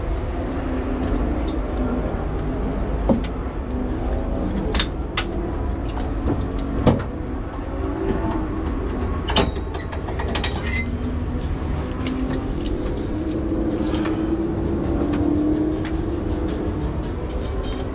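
Race car engine idling steadily, heard from inside the stripped-out cockpit, with scattered sharp clicks and knocks.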